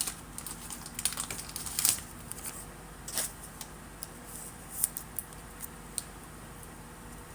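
Trading cards being handled: faint scattered rustles and light clicks, a few a second at most, with a slightly louder click about two seconds in.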